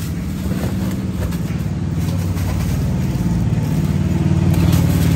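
A motor vehicle's engine running at low speed: a low, steady hum that slowly grows louder.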